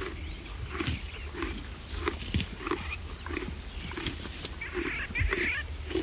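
Burchell's zebra grazing: short crunching bites and chews of grass in a steady rhythm of about two a second. Birds call in the background, most clearly near the end.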